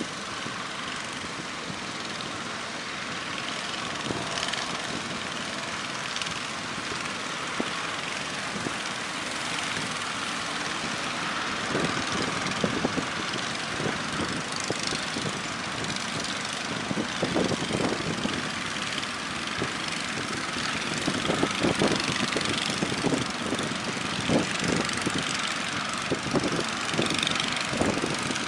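An engine drones over a steady rush of surf. From about halfway through, the sound grows louder and choppier, with uneven pulses.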